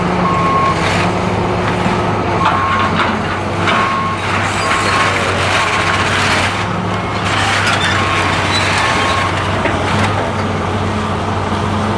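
Heavy demolition machine's engine running steadily, with a backup alarm beeping on and off and rubble crunching as the machine tears down an old building.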